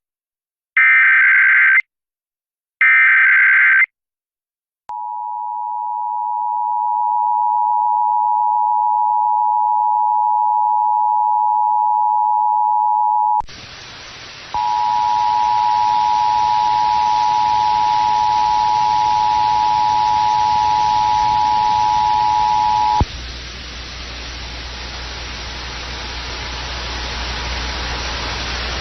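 Emergency Alert System signals. Two short screeching bursts of the digital SAME header are followed by the steady two-tone attention signal, which swells in over the first couple of seconds. About halfway through, loud radio static hiss cuts in; the tone drops out briefly, returns over the static, then fades to faint under the hiss and a low hum.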